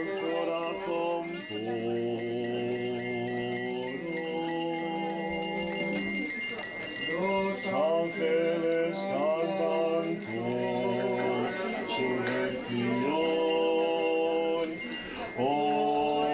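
Church chant sung in long held notes that step from pitch to pitch, with small bells jingling throughout.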